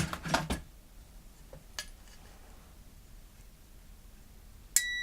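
A light click, then near the end a meter's steady high continuity beep comes on suddenly and holds. This is the sign that the resettable thermal cutoff, cooled on a heat sink, has closed the circuit again.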